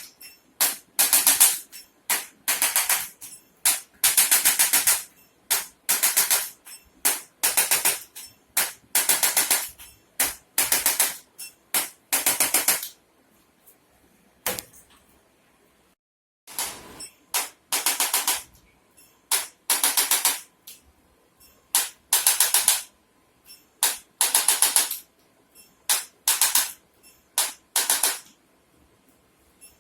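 Short bursts of rapid mechanical clicking, repeating roughly once a second, with a break of about three seconds near the middle.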